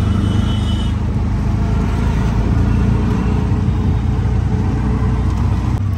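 Auto-rickshaw engine running steadily as the rickshaw drives, heard from inside the open cabin as a continuous low drone mixed with road and traffic noise.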